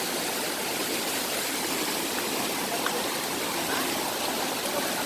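Steady, even rush of falling and flowing water at a waterfall.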